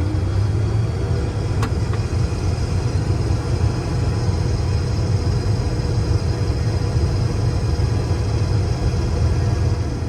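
Case IH 2388 combine's diesel engine running steadily, throttled up for harvesting, with a single sharp click about a second and a half in.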